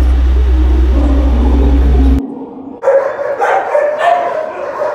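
A steady low hum cuts off abruptly about two seconds in. From about three seconds in, dogs are barking and yipping in repeated calls.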